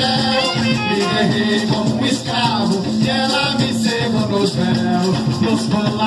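Live carimbó band music: a quick, steady rhythm with maracas shaking over the percussion, and a melody line on top.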